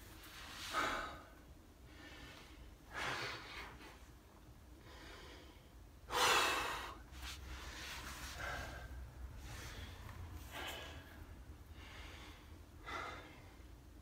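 A man breathing hard with effort: forceful puffs of breath about every two to three seconds, the loudest about six seconds in, from the strain of holding a gearbox up overhead while refitting it.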